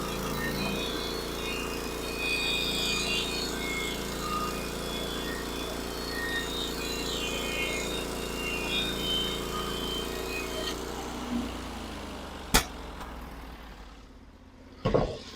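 Sawmill engine running steadily while the blade cuts through a pine log. About eleven seconds in the cutting noise stops and the engine drops back, followed by a sharp click and a knock near the end.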